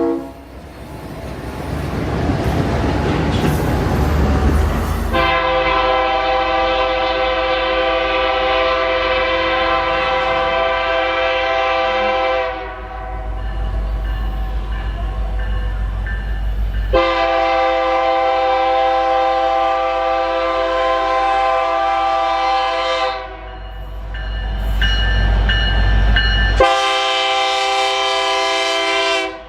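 Locomotive horn sounding in two long blasts of several seconds each, separated by the rumble and clatter of a train running on the rails; a third blast starts near the end and is cut off short.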